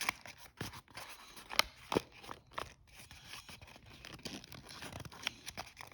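Folded paper of an origami tetrahedra fidget toy rustling and crinkling as it is handled and refolded, with irregular sharp clicks and taps, the loudest about one and a half to two seconds in.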